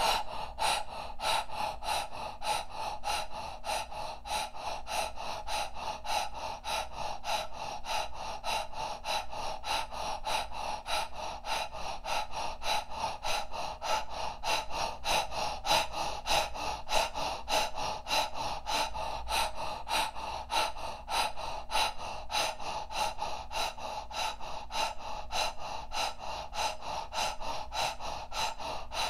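A woman's rapid, rhythmic Kundalini-style breathing through the open mouth: sharp breaths pumped in and out from the diaphragm at an even pace of about three a second.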